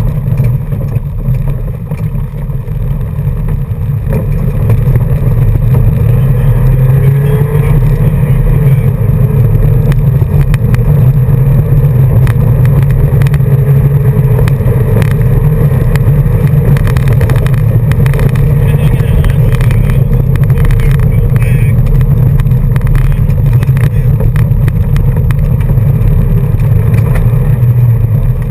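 Car driving on a gravel road, heard from inside the cabin: engine drone and tyre rumble, with many small stone clicks against the underbody. The car speeds up about four seconds in, then holds a steady pace.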